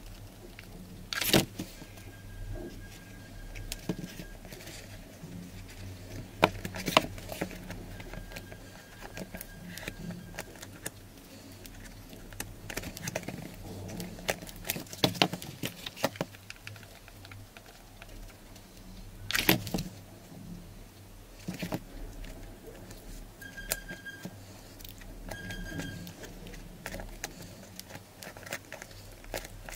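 Cardboard strips and a hot glue gun handled on a tabletop: irregular taps, scrapes and rustling, with a few louder knocks scattered through.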